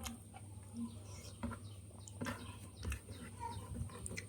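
Mouth sounds of eating rice and fish by hand: chewing with short, wet smacks and clicks at irregular intervals, over a steady low hum.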